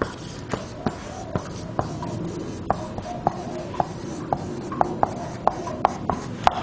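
Marker writing on a whiteboard: an irregular run of short squeaks and ticks of the felt tip on the board as words are written out, about three strokes a second.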